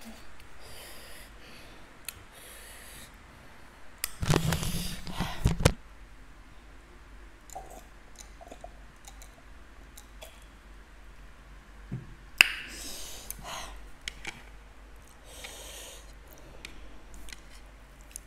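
A woman sniffing and blowing her nose into a tissue, with one loud blow lasting about a second and a half, about four seconds in. Short sniffs and breaths come through the rest, and there is a sharp knock about twelve seconds in.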